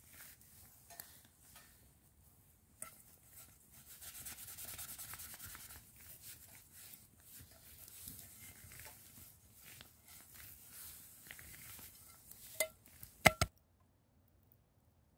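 A hand scouring a stainless steel frying pan with forest soil and pine needles: gritty rubbing and scraping in uneven strokes. A few sharp knocks near the end are the loudest sounds.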